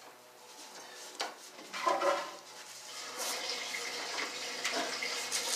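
Hands working the belt and worn idler pulley inside a dryer cabinet: a sharp click about a second in and a short scrape around two seconds, then a steady hissing rustle with scattered small clicks from about three seconds on.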